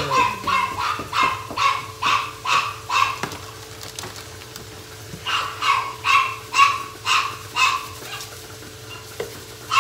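Pet dog barking repeatedly, high-pitched barks at about two a second, in two runs with a pause of about two seconds between them.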